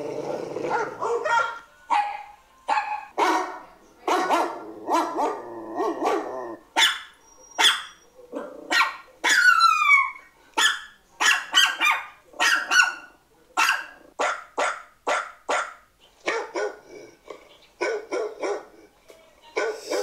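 Pet dog barking again and again in short sharp barks, in play as it is handled, with stretches of growling in the first few seconds. One long falling whine comes about nine seconds in.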